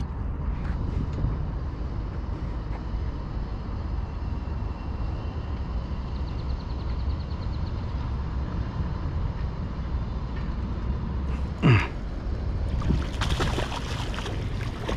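Wind rumbling on the microphone, with one brief sharp swish a little before the end. It is followed by a hooked largemouth bass splashing and thrashing at the water's surface.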